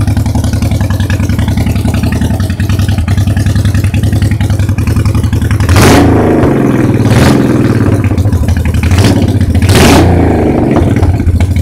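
Honda VT1100's V-twin engine idling through its exhaust, a steady loud pulse. There are four quick throttle blips in the second half, the first and last a little longer.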